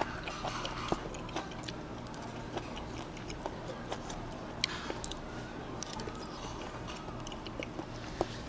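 A person chewing grilled beef large intestine (daechang) wrapped in chives, with many small scattered clicks of chopsticks against dishes.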